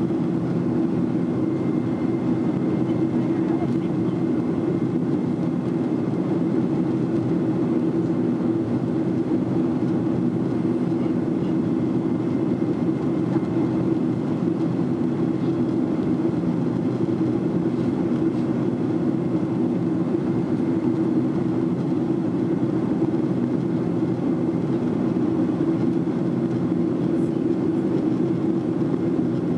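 Steady cabin noise of a Boeing 767-400ER in its climb after takeoff: the engines and the airflow over the fuselage make an even, low drone as heard from a window seat over the wing.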